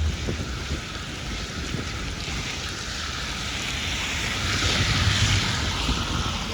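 Rain falling, with wind buffeting the microphone as a low rumble; the hiss swells, loudest about five seconds in, then eases slightly.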